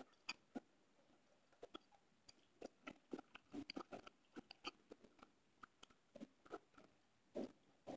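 Faint, irregular small clicks and ticks, thickest in the middle few seconds, over near silence.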